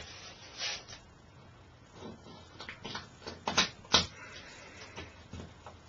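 Soft scraping, then a run of short sharp clicks and scratches, the loudest about three and a half and four seconds in, as a Monkey Hook's bent steel wire is twisted back and forth into drywall.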